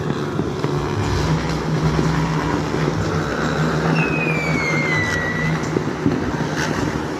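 Motorcycle engines running with a steady low rumble. A thin high whistle slides down in pitch about four seconds in.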